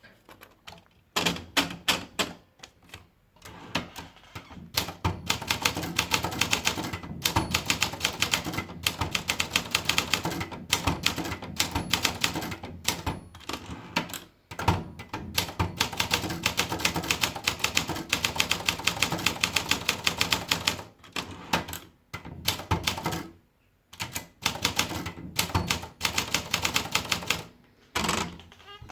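Olympia Traveller De Luxe S manual portable typewriter being typed on: rapid runs of sharp key strikes, broken by several brief pauses.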